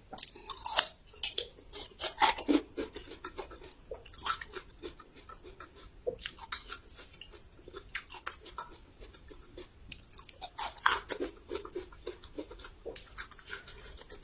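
Close-up chewing of crisp raw young ginger, with irregular crunches that come in clusters, loudest in the first few seconds and again about ten seconds in.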